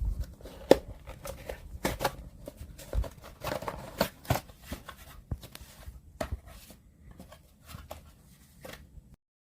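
Handling noise: irregular taps, clicks and rustling as small objects are picked up and set down, the loudest knock coming under a second in. The sound cuts off suddenly about nine seconds in.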